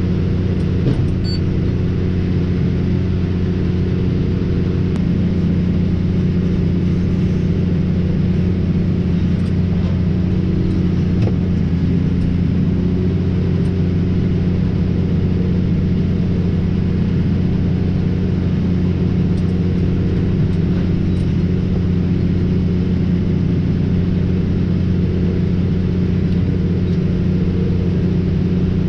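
Tractor engine running steadily at a constant hum while working a round baler.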